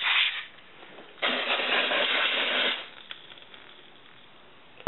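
Canned compressed air spraying into a slide projector's lamp housing to blow dust off the reflecting mirror and fan. It comes in two hissing bursts: one cuts off just after the start, and a second, about a second and a half long, begins about a second in.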